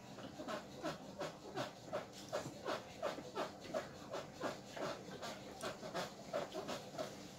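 A chair creaking in a quick rhythm as someone bounces up and down in it, about three squeaks a second, each dropping in pitch; it sounds like a broken trampoline.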